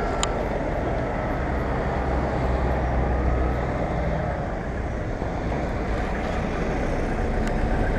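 Steady road traffic noise heard from a moving bicycle: a low, even rumble of car engines and tyres on wet asphalt.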